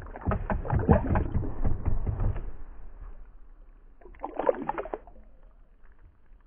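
A largemouth bass splashing at the surface as it is released by hand beside a kayak, with irregular water sloshing and splashes for the first couple of seconds. Another short burst of splashing comes about four seconds in.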